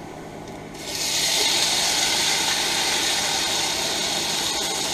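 Canned red beans in sauce poured into a hot oiled pan, setting off a steady sizzle that starts about a second in.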